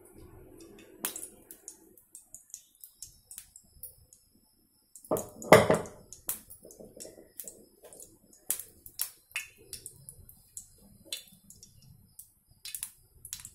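Oil in a frying pan crackling as it heats up, with irregular sharp pops and one louder sputter about five and a half seconds in.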